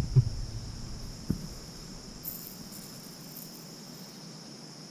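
Insects chirring in a steady, high, unbroken drone, with a couple of small handling knocks in the first second or so.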